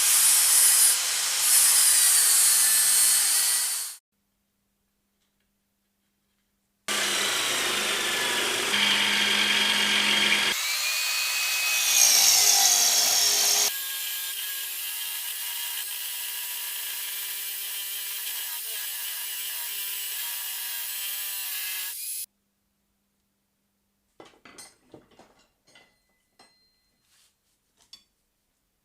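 Power tools working metal in short clips with hard cuts between them. There are two loud spells of cutting with a whine that shifts in pitch, then a steadier machine run of about eight seconds, and a few faint light clicks near the end.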